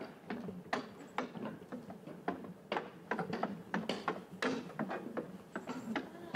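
Footsteps of people walking: a quick, uneven series of sharp knocks, several to the second.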